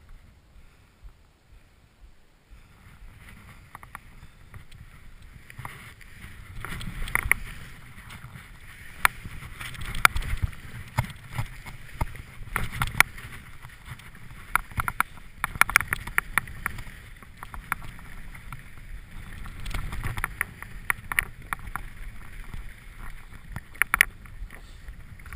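Skis sliding and scraping over snow, with wind rushing on the helmet-mounted camera's microphone and many sharp clacks and knocks from the skis. It starts faint and builds about two seconds in, as the skier gets moving.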